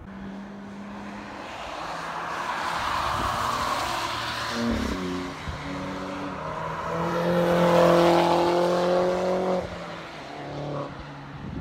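Cars passing at speed on a race track: a swelling rush of tyre and engine noise, then an engine held at high, steady revs, loudest about two-thirds of the way in, that drops away suddenly near the end.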